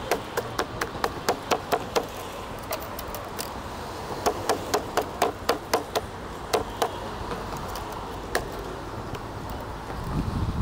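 Knife chopping on a wooden cutting board, in two quick runs of about four strokes a second, then a few single strokes.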